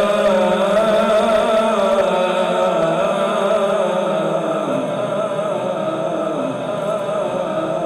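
A male reciter's voice holding a long, wavering melodic note of Quran recitation (tilawat) into a microphone and sound system. The lower part of the tone drops away about five seconds in, and the note slowly fades.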